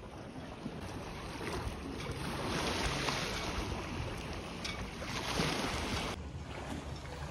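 Wind on the microphone over small lake waves lapping and washing against a stone shore edge. The noise swells in the middle and drops suddenly about six seconds in.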